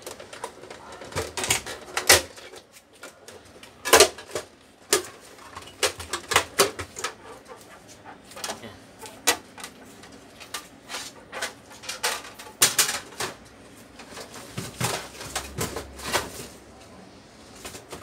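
Plastic printer housing being unclipped and lifted off an Epson L120's mechanism: a run of irregular sharp clicks, snaps and knocks, the loudest about four seconds in.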